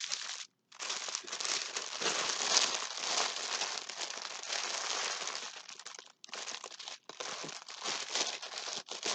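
Plastic packaging of a diamond painting kit crinkling as it is handled, almost continuously, then in shorter bursts with brief pauses over the last few seconds.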